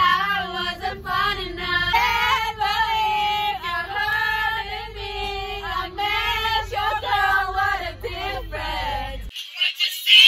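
A group of girls singing loudly together, with a minibus's low rumble underneath. Singing and rumble both cut off suddenly near the end.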